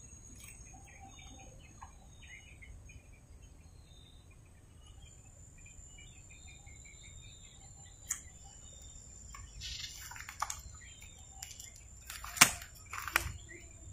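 Swamp ambience: a steady high-pitched insect drone with scattered short bird chirps. Several sharp clicks and knocks come in the last few seconds, the loudest about twelve seconds in.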